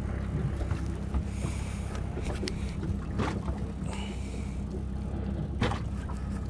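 A fishing boat's engine running steadily, a low hum, with a sharp click about five and a half seconds in.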